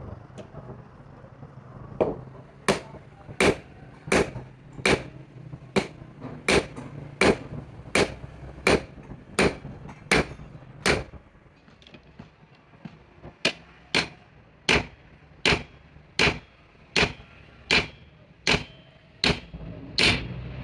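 Hand hammer blows struck in a steady rhythm, about one and a half a second, with a pause of about two seconds midway before the hammering resumes.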